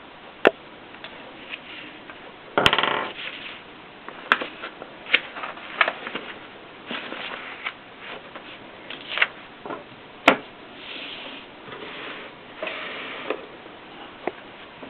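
Triumph Norm 6 manual typewriter in use: sharp, irregular mechanical clicks of keys and type bars striking, with a longer rattling stroke about two and a half seconds in.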